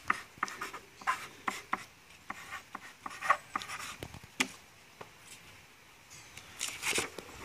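Pen scratching on a sheet of paper laid on a wooden bench as a name is signed, in short quick strokes; the writing stops about four and a half seconds in, and a few soft rustles follow near the end.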